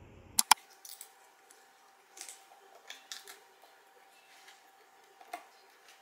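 Tabletop handling sounds as a carton of milk is picked up and readied for pouring: two sharp clicks about half a second in, then scattered short rustles and taps, over a faint steady hum.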